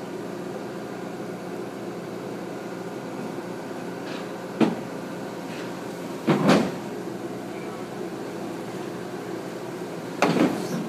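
Crawler excavator's diesel engine running steadily while its steel tracks move on a steel low-loader trailer, with loud metallic clanks: one a little before halfway, a double clank just past halfway, and another near the end.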